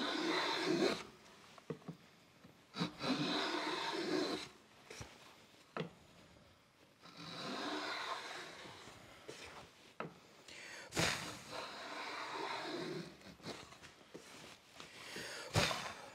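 Hand router plane shaving wood in several scraping passes of a second or two each, taking light cuts to deepen a shallow recess in a board. A few sharp knocks fall between the passes.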